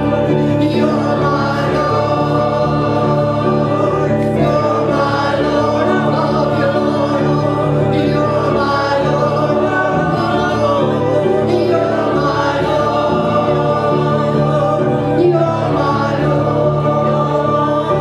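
A slow gospel worship song: a man singing over sustained chords played on a GeneralMusic SX2 electronic keyboard.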